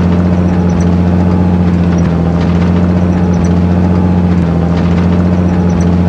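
Vehicle engine running at a steady speed, heard from inside the cab while driving: a loud, constant low hum with no change in pitch.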